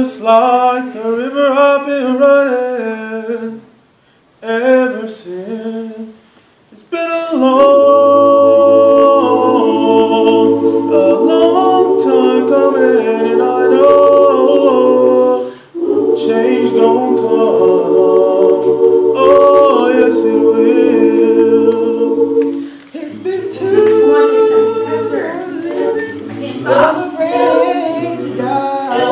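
Student choir of mixed voices singing a cappella. A solo voice sings alone at first, then the full choir comes in about seven seconds in with sustained chords and low bass notes underneath. The choir breaks off briefly near the middle and then continues.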